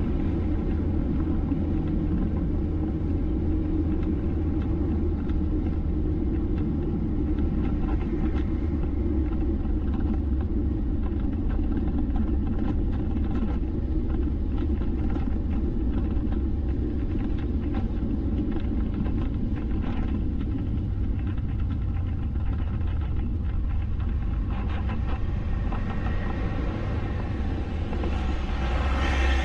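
Steady rumble of a vehicle driving along a road: engine and road noise.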